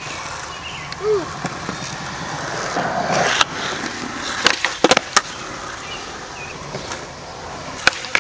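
Skateboard wheels rolling on concrete, with sharp wooden clacks of the tail popping and the board hitting the ground: once a little past the middle, a quick cluster soon after, and a pop near the end as the board flips into the air.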